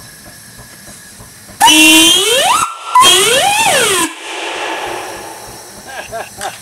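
Steam whistle on a Farquhar overtype engine's boiler, blown in two blasts that make a wolf whistle. The first blast slides up in pitch and the second rises and falls. Steam then hisses on from the whistle and fades away.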